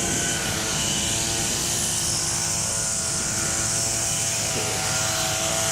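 A steady, evenly pitched motor drone, loud enough to drown out a voice, with a constant high hiss above it.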